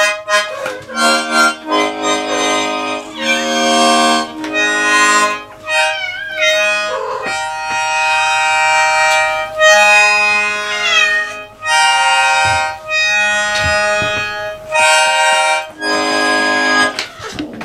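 Small button accordion playing held chords in halting, broken-off phrases with short gaps between them. A cat yowls with wavering, sliding cries over the chords, about six seconds in and again near eleven seconds.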